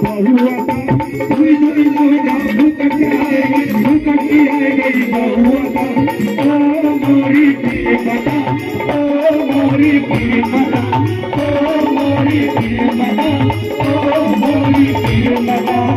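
Live devotional jagrata music: men singing into microphones over electronic keyboard and dholak drum, with a fast, steady beat, all amplified through a PA system.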